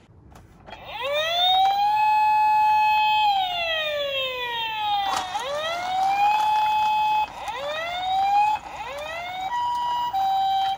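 Toy emergency vehicle's electronic siren: a wail that rises, holds and slowly falls, then, after a click about five seconds in, rises again in shorter whoops and switches to a two-tone hi-lo near the end.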